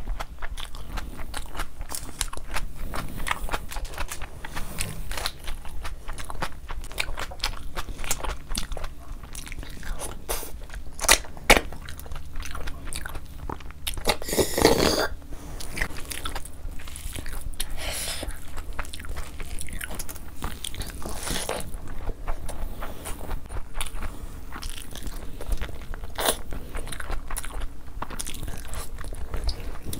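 Close-miked eating of mutton curry and pulao by hand: steady chewing and biting with many small mouth clicks and smacks, and one longer, louder noisy burst about halfway through.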